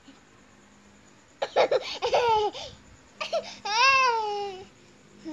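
Toddler laughing in a few short bursts, then letting out one long squeal that slides down in pitch.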